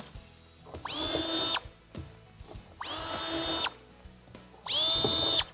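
Handheld power drill with a 3/8-inch bit, triggered in three short bursts. Each burst spins up quickly to a steady high whine and stops abruptly. The drill is going down through the guide holes of a plastic waterer base to mark pilot holes in concrete.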